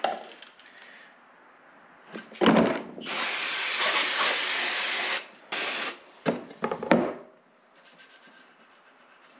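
Aerosol brake cleaner spraying into a parts-washing tub. It gives one steady hiss of about two seconds, then a short second burst. A single knock comes just before the spray, and a few light knocks of parts being handled follow it.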